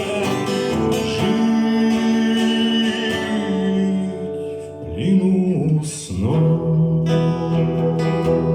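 Live acoustic guitar playing under a melody of long held notes that swoop down and up between pitches about five and six seconds in.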